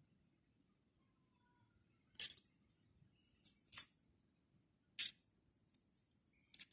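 Small plastic toys being handled, giving three short crisp clicks and rustles a second or so apart.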